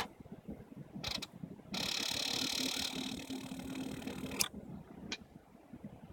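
A few sharp clicks and a steady mechanical whir about three seconds long that stops with a click, from a 2001 Honda CBR600 that won't start.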